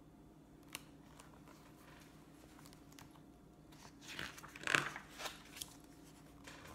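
A picture-book page being turned: paper rustling and crinkling for about a second and a half, starting about four seconds in. A faint click comes under a second in, over low room tone.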